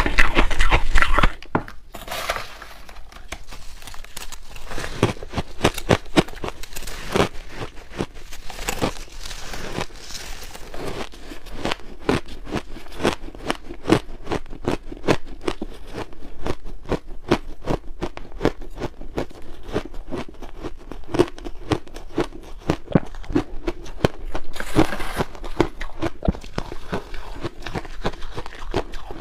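Close-miked crunching and crackling of frozen purple shaved ice being bitten and chewed, a dense run of crisp crackles; the first second or so is louder.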